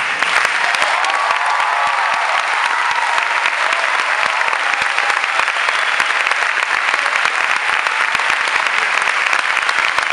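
Theatre audience applauding steadily after a dance performance has ended, a dense continuous clapping.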